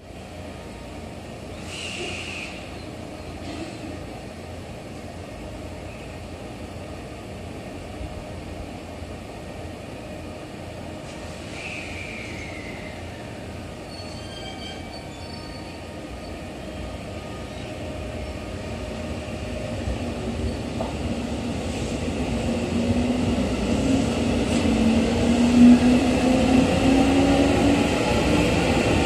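Local electric train of coupled 211 series and 313 series cars departing. Its traction motors whine, rising steadily in pitch as it accelerates and growing louder over the last ten seconds.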